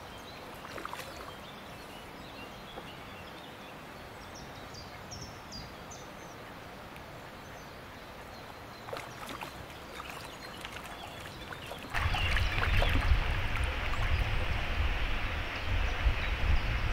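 Quiet outdoor ambience with a few faint bird chirps. About twelve seconds in, a loud, gusting rumble of wind on the microphone takes over.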